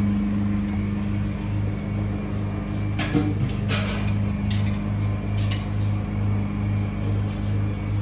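Steady low mechanical hum with a regular throb, about two to three beats a second. A few short clicks and knocks come around three to four seconds in.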